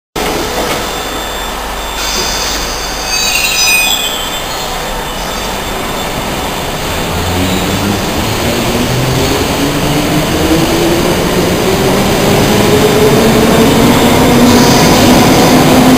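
London Underground train pulling out of a station platform. Brief high squeals come about two to four seconds in; from about seven seconds the traction motors whine, rising steadily in pitch as the train speeds up, while the running noise grows louder.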